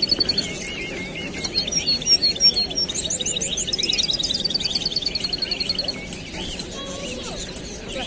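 Many caged songbirds chirping and singing at once, with a fast, even trill running for nearly three seconds from about three seconds in.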